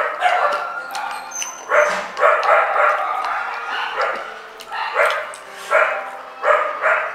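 A dog barking repeatedly in short, sharp barks, roughly one or two a second.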